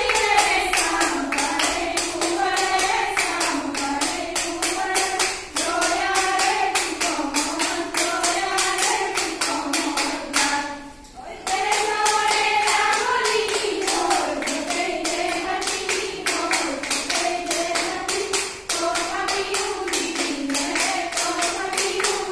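Women singing a Bihu song together to steady rhythmic hand clapping from the dancers, with a brief break in the singing and clapping about eleven seconds in.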